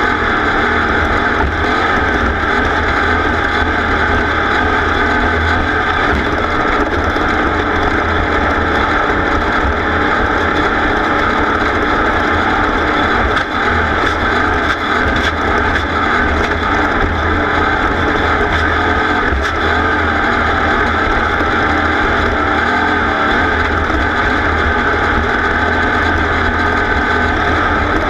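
Racing vehicle's engine running hard at steady high revs throughout, loud and unbroken.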